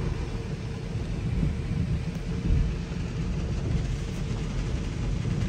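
Automatic car wash heard from inside the car's cabin: water and soap spraying against the windshield and body make a steady, rumbling rush of noise.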